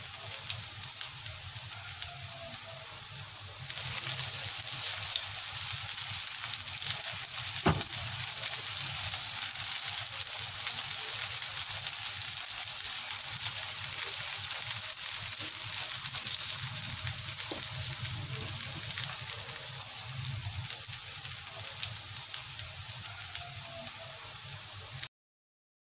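Okra (bhindi) sizzling in melted butter on a hot sizzler plate: a steady crackling hiss full of tiny pops. It grows louder about four seconds in, has one sharp tick near eight seconds, and cuts off suddenly just before the end.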